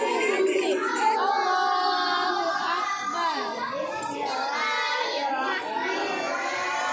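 Group of young children chanting together in unison, with long drawn-out sung notes and overlapping voices.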